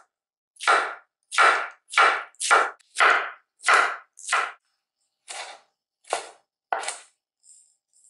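Chef's knife slicing through a cabbage wedge onto a wooden cutting board: about ten short cuts, one every half second to a second, the ones after about five seconds softer.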